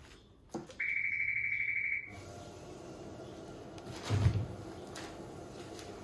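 Shoe needle detector's electronic buzzer sounding a rapidly pulsing high beep for about a second, then its conveyor belt motor starting up and running with a steady hum. A single thump about four seconds in is the loudest sound.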